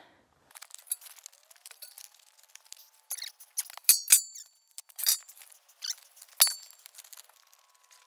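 Pallet boards and metal pieces being picked up and moved: scattered knocks and clatter, with short metallic clinks that ring about four seconds in and again near six and a half seconds.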